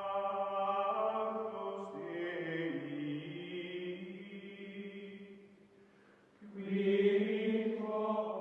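Outro music of long, held chant-like tones with a choir-like sound, one sustained chord changing pitch slowly. It fades away about six seconds in, swells back loudly with a new held chord, then cuts off abruptly at the end.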